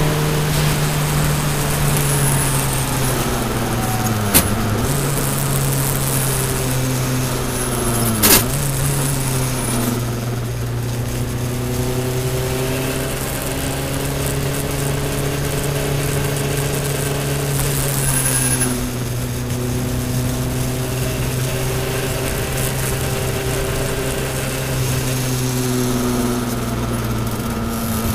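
Toyota Celica All-Trac's turbocharged four-cylinder engine heard from inside the cabin, running hard on track. The engine note dips sharply and recovers twice, about four and eight seconds in, each time with a sharp click, like quick gear changes. A hiss of tyre spray off the wet track fades after about ten seconds, leaving a steadier engine note that rises and falls gently.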